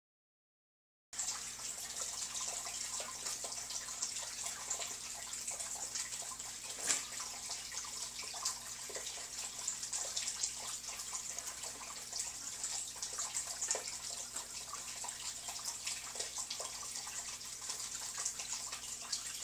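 Peahens pecking dog kibble out of a stainless steel bowl: many small irregular clicks and taps of beaks on kibble and metal, over a steady high hiss.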